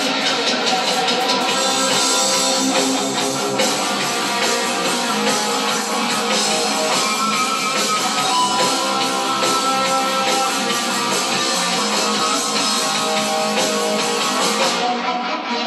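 Electric guitar playing through an amplifier.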